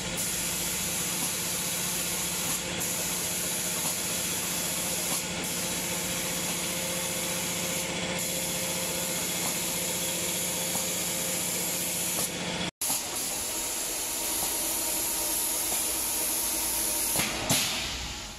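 Automatic spray-painting machine spraying cabinet doors: a steady hiss of the air spray guns over a low, steady machine hum, the hiss breaking off briefly every two to three seconds.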